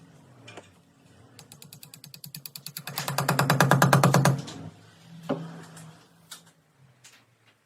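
A rapid, even run of mechanical clicks, about ten a second, growing louder for about three seconds and then stopping, followed by a few single knocks.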